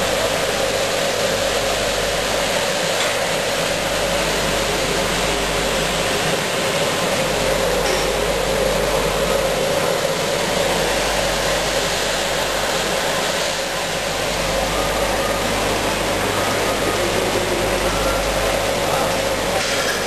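Packaging machine running steadily: an even mechanical noise with a constant hum.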